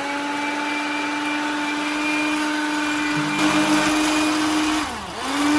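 Electric whisk running steadily with a motor whine, beating egg whites toward a fluffy, snow-like foam. About five seconds in, the motor slows with a falling pitch, then speeds back up.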